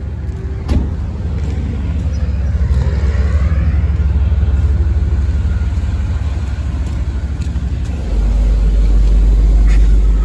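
A motor vehicle driving: a steady low rumble of engine and road noise. It grows deeper and louder about eight seconds in.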